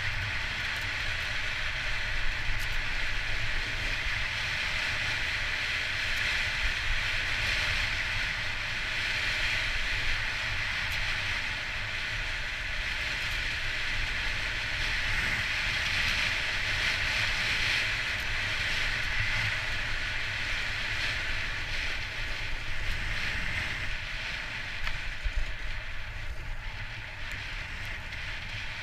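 Steady rushing wind on the microphone, with a low buffeting rumble, over the continuous hiss and scrape of edges sliding on groomed snow during a fast downhill run.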